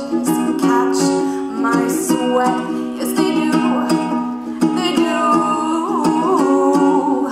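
A woman singing to her own strummed ukulele.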